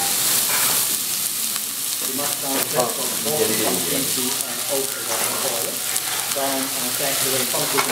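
Small mushrooms sizzling in a hot oiled frying pan, a steady frying hiss as they are tossed and spread by hand.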